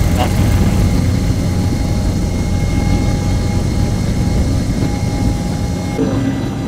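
Jet airliner's wing-mounted engines at takeoff thrust, heard from inside the cabin: a steady engine roar with low rumble and a few steady whining tones. The deep rumble eases a little a couple of seconds in as the plane leaves the runway and climbs.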